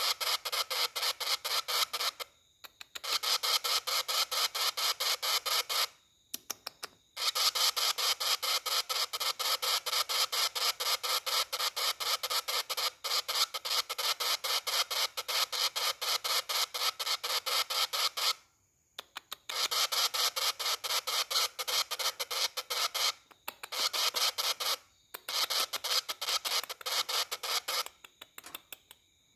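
A young lovebird chick calling in a rapid pulsed chatter, many pulses a second, in long runs broken by brief pauses.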